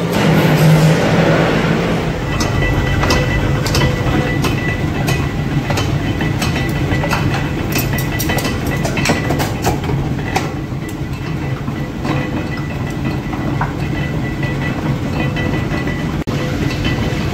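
Workshop machinery running steadily with a low hum and a faint whine, crossed by frequent irregular metallic clicks and clanks, from a mechanical power press upsetting hot steel rod ends into bolt heads and steel rods clinking at the forge.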